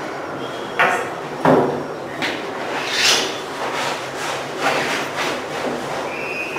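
A few sharp knocks and rubbing, scraping noises, the sharpest about a second in and again about half a second later, over a steady background hum.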